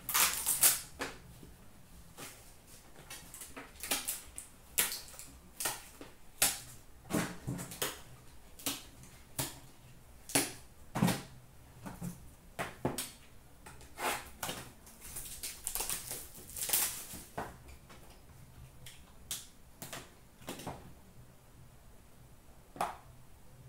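Irregular taps, clicks and scrapes of cardboard hockey card boxes being handled and set down, some onto a glass shelf.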